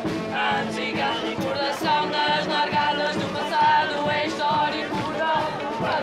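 A marcha song: the marchers singing together in chorus over instrumental band accompaniment, with long held notes.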